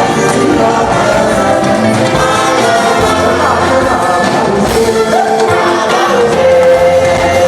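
A church choir singing gospel music, with voices holding long notes together.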